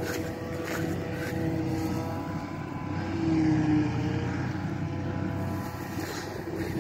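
Mengele SF 5600 forage harvester working as it picks up and chops oat swaths: a steady machine drone with a whine, getting louder around the middle.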